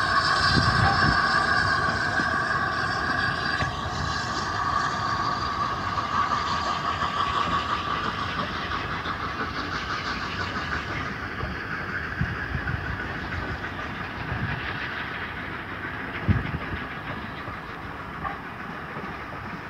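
Steam locomotive Flying Scotsman, an LNER A3 Pacific, passes with its train of wooden-bodied coaches. A steady high-pitched ring sounds over the first several seconds, then the rolling of the coaches slowly fades, with a few sharp wheel knocks over rail joints near the end.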